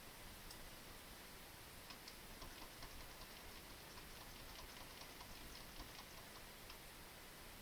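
Near silence with a run of faint, quick, irregular light clicks and ticks starting about two seconds in and lasting several seconds.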